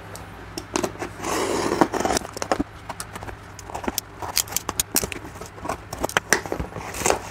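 A cardboard parcel being cut open with a snap-off utility knife: the blade slits through packing tape and plastic wrap with a longer rasp a little over a second in, among many crackles of plastic and clicks and taps as the box is handled. A steady low hum runs underneath.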